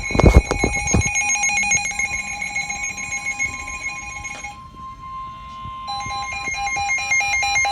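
NOAA Weather Radio warning alarm: a steady warning tone under a shrill, rapidly pulsing alert beep, which drops out for about a second in the middle and returns near the end. A few heavy thumps sound at the very start.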